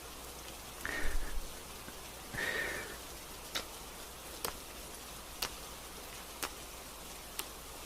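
Gentle rain falling steadily, with sharp clicks about once a second and two short louder sounds near the start.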